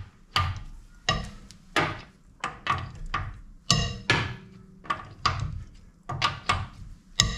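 Socket and breaker bar on an alloy wheel's bolts as they are cracked loose: a series of sharp metallic knocks and clicks, each ringing briefly, coming roughly one or two a second.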